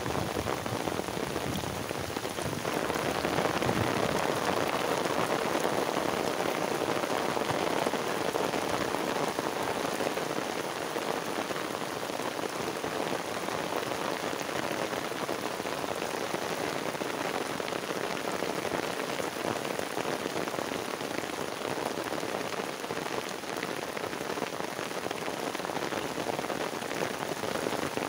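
Heavy rain falling steadily onto standing floodwater and a wet path.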